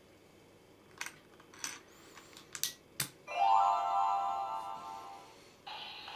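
Smile Pact toy compact: a few sharp clicks as it is handled, then an electronic chime jingle from its small speaker, fading out over about two seconds, with another toy sound starting near the end.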